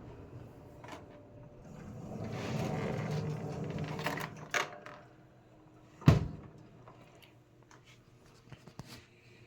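1965 Penncrest 300 box fan's running noise dying away over the first few seconds, with clicks and knocks of handling and one loud thump about six seconds in, then only faint clicks.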